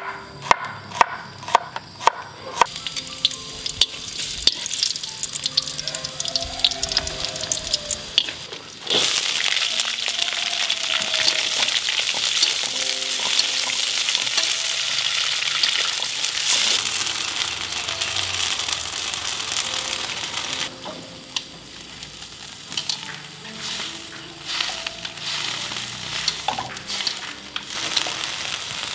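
Food frying in hot oil in a pan, with a few sharp knocks near the start. About nine seconds in the sizzle suddenly gets much louder, and it eases off again after about twenty seconds.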